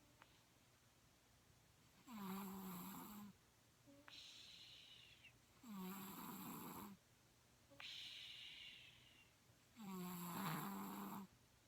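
Steady snoring in slow breaths, one about every four seconds. Each breath is a pitched snore of a little over a second, followed by a softer whistling breath that slides down in pitch.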